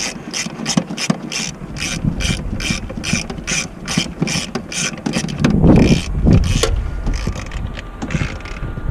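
Hand socket ratchet clicking steadily, about three clicks a second, as it backs out a master-cylinder mounting bolt. A louder low bump comes about six seconds in.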